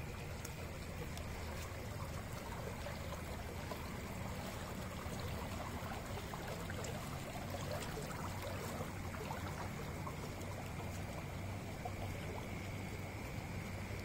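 Muddy water flowing fast down an earthen channel and churning in a concrete-block inlet chamber of a farm pond: a steady rushing of water, with a constant low hum underneath.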